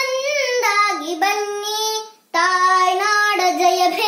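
A young girl singing a Kannada song in long held notes that glide between pitches. She breaks off for a moment a little past halfway, then carries on.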